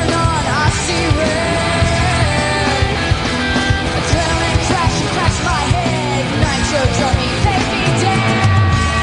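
Loud rock music with a lead vocal singing over drums and guitar.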